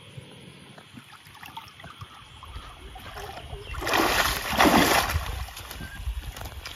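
Shallow muddy water splashing and sloshing as someone wades and gropes in it for fish by hand, with small trickles at first and two loud surges of splashing close together a little after halfway.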